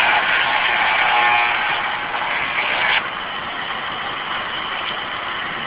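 CNC milling machine cutting through plastic, a loud steady hissing cut that stops abruptly about three seconds in, leaving the machine running more quietly.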